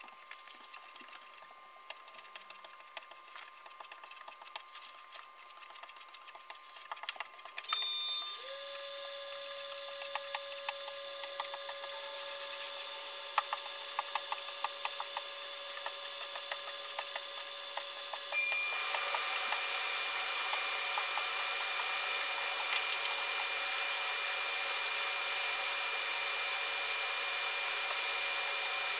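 A machine hum starts about eight seconds in, rising quickly to a steady pitch; about ten seconds later a higher whine and a hiss join it and the sound grows louder. Scattered light clicks and knocks from work on the hull run through it.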